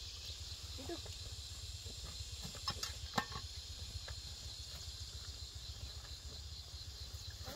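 Steady high insect buzzing from the field, with a few sharp clicks about three seconds in.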